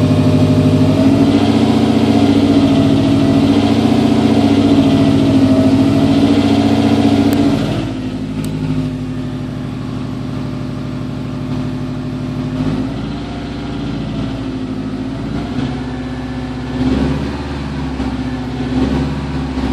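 Subaru STI engine running steadily for the first seven seconds or so, then dropping in level and settling lower, with a few brief swells in revs near the end. The owner calls the noise it is making strange.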